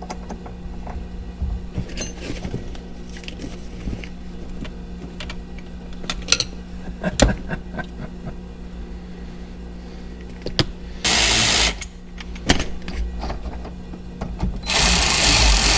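Clicks and clinks of hand tools and parts on a steering wheel hub, then two short runs of a cordless power tool's electric motor: one brief burst about eleven seconds in and a longer one near the end.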